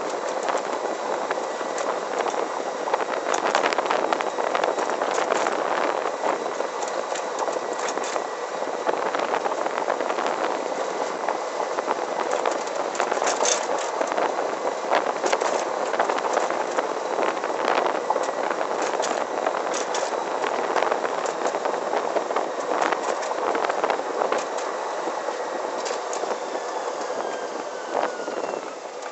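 Electric go-kart conversion with a belt-driven Motenergy brushless motor on the move: steady tyre and wind noise with scattered rattles and clicks from the chassis, and a faint steady whine. The noise dies down near the end.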